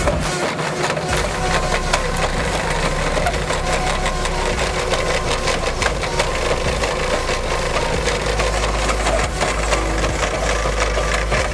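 A machine's engine running under load while its cutter chews through wood, with dense, rapid crackling and rasping of wood being ground up.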